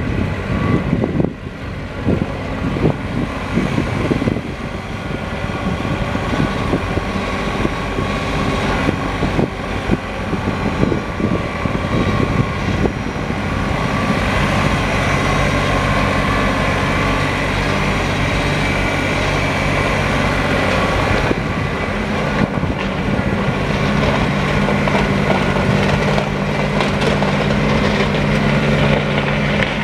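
New Holland TC33D compact tractor's diesel engine running steadily as the tractor is driven about. Its low note grows stronger in the last third.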